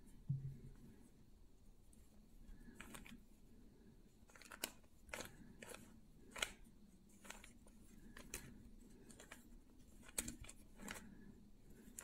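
Plastic Rubik's cube being turned by hand: faint, irregular clicks and clacks as its layers snap round, about a dozen of them spaced unevenly apart.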